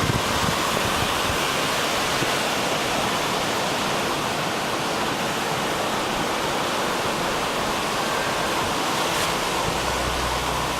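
Sea surf: a steady, even rush of water without distinct swells.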